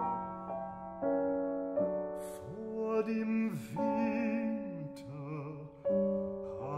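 Baritone singing a slow German art song with a wavering vibrato, accompanied by a grand piano holding chords that change every second or so.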